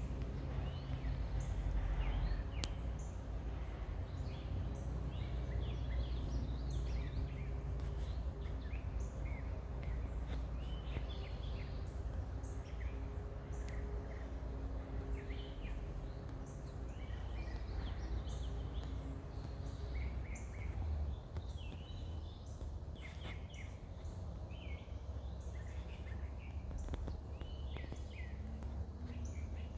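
Birds chirping and singing in short, scattered calls, over a steady low rumble.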